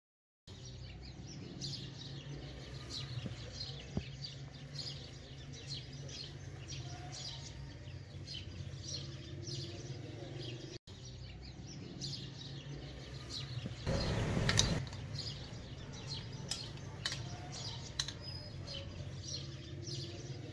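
Small birds chirping over and over in the background above a low steady hum, with a brief, louder rustling noise about two-thirds of the way through.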